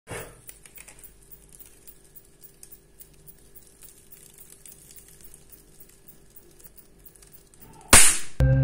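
Faint, irregular crackling of a burning paper torch wrapped in foil, over a faint steady hum. Near the end comes a short, loud burst of noise, and then music starts.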